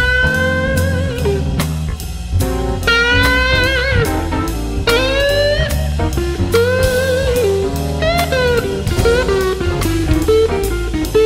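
Background music: a blues instrumental with a lead guitar bending and sliding its notes with vibrato over a steady drum beat.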